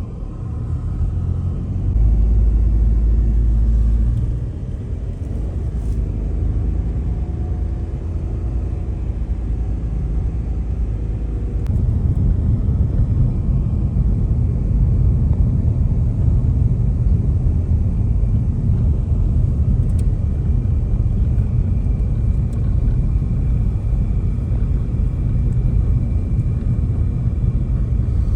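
A car on the move, with a steady low rumble of engine and road noise that grows louder about twelve seconds in. A heavy low buffet lasts about two seconds near the start.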